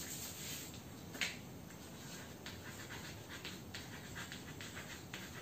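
Chalk writing on a blackboard: a run of faint, short scratches and taps, the clearest about a second in and a quick cluster in the middle.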